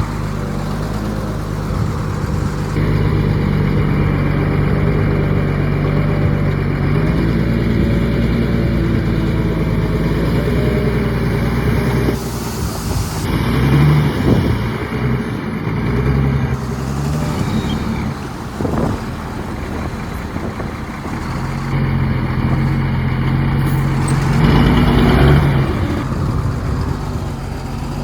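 Heavy diesel engines of earthmoving machines, a bulldozer and a dump truck, running under load. The engine note shifts and climbs a couple of times as they rev. Two short hisses of air come about halfway through and again near the end.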